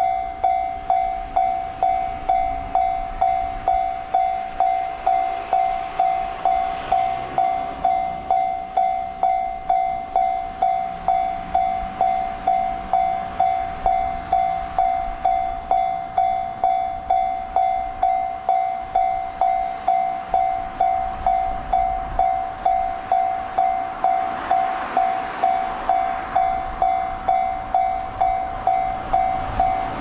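Japanese railway level-crossing warning bell ringing steadily, an electronic two-tone ding about one and a half times a second. Under it, a JR Shikoku 1500-series diesel railcar pulls away from the station and comes toward the crossing, its engine and wheel noise growing louder over the last few seconds.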